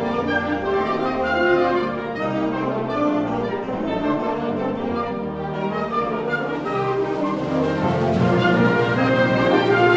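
Concert wind band playing: flutes, clarinets, saxophones and brass holding sustained chords together, swelling slightly louder near the end.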